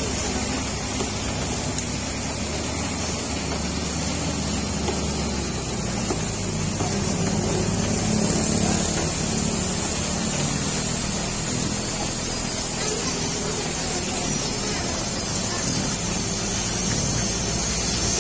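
Diesel engine of a heavily loaded Hino truck running under load as it pulls slowly through a hairpin bend, its low hum growing louder and heavier about halfway through as it comes closest. A steady hiss of rain and tyres on the wet road runs underneath.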